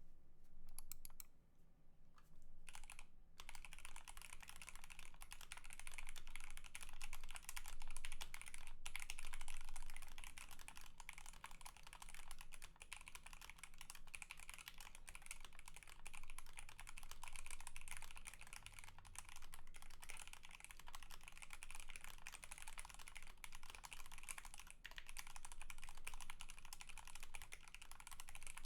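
Fast, continuous typing on a GMMK Pro mechanical keyboard with an aluminium plate, factory-lubed C³Equalz x TKC Tangerine linear switches (62 g), GMK Botanical keycaps and lubed, band-aid-modded plate-mount stabilizers. It starts with a few scattered keystrokes, then runs as steady typing from about three seconds in.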